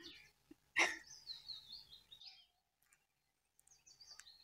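Small songbirds singing in roadside trees: a falling run of high chirping notes, then more chirps near the end. A single sharp, loud sound about a second in stands out above the birdsong.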